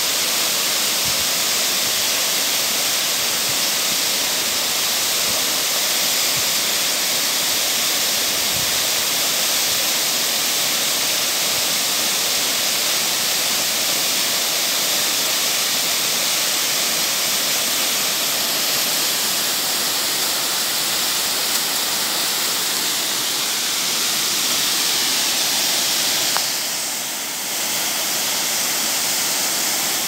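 Waterfall plunging into a pool: a steady rush of falling water, dipping briefly near the end.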